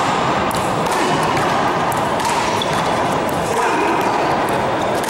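One-wall handball rally: the rubber ball smacked by hand and bouncing off the wall and gym floor in a few sharp hits, over a steady background of voices in the hall.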